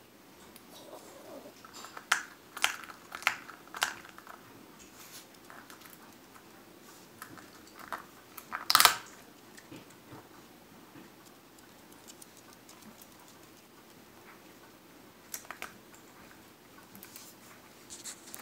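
A small dog gnawing at a walnut in its shell: sharp cracks and crunches of the shell come in short clusters, with the loudest, longest crunch about halfway through.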